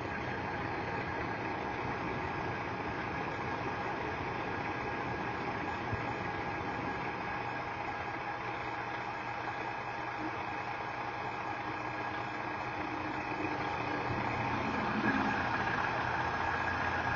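Steady hum of a vehicle engine running, even throughout with a faint steady tone over it.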